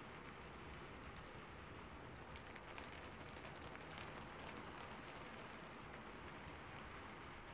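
Cotton swab dabbing white acrylic paint onto a canvas: soft, irregular light taps over a steady faint hiss. The taps thin out after about four seconds.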